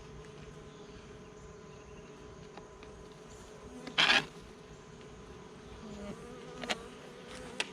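Honey bees from a swarm buzzing steadily, with a wavering tone near the end as one flies past. A short, loud rush of noise about four seconds in, and a few sharp clicks near the end.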